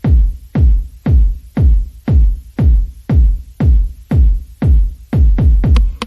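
Electronic background music with a heavy kick drum beating steadily about twice a second.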